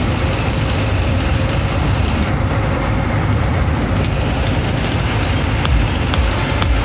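Steady low engine and road rumble from inside the cab of a moving vehicle.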